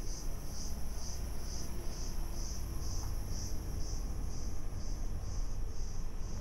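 Insects in the roadside forest calling in a high, shrill, even pulse, about two pulses a second, over a low steady rumble.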